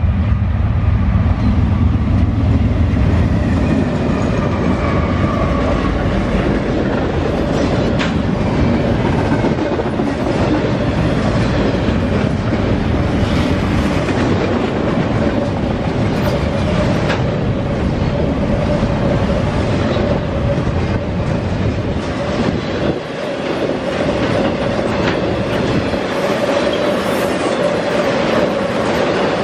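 Long intermodal freight train of double-stack container and trailer-on-flatcar cars rolling past close by, steel wheels clacking over the rail joints, with a steady tone running underneath. A deep rumble is strongest in the first few seconds, then eases.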